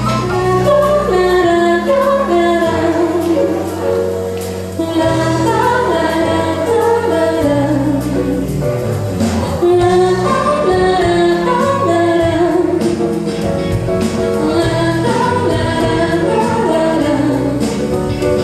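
A woman singing a pop song live into a microphone, with keyboard and band accompaniment.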